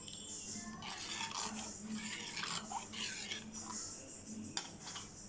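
Steel ladle stirring thick lentil sambar in a clay pot, with irregular scrapes and clinks of the ladle against the pot.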